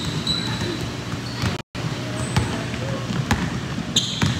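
A basketball dribbled on a hardwood gym floor, bouncing repeatedly, with short high sneaker squeaks at the start and again near the end. The sound drops out for an instant at an edit about a second and a half in.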